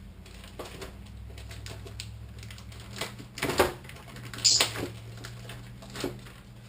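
Handling noise from a model glider's balsa-covered foam wing being picked up and turned over: a handful of sharp taps, knocks and crinkles, the loudest about halfway through, over a steady low hum.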